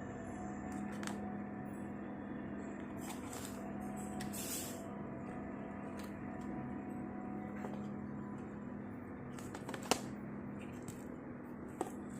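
Packaging of an Apple Watch Ultra 2 being handled while it is unboxed: a brief rustle about four and a half seconds in and a few light clicks or taps, over a steady low hum.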